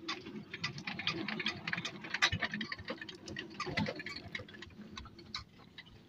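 Nylon fishing net being hauled in by hand: a fast, irregular run of light clicks and ticks, thinning out near the end.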